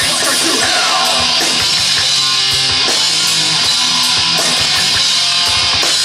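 Live rock band playing loud: electric guitar and bass guitar over a drum kit.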